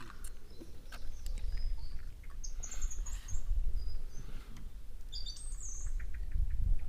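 Small birds chirping in short high phrases, three bursts of calls a second or two apart, over scattered light clicks and a low rumble that grows louder near the end.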